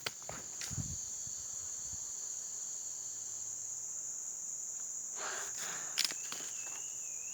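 Insects chirring in a steady high-pitched drone, with a few footsteps on the forest floor in the first second and again about five to six seconds in. A thin wavering whistle comes in near the end.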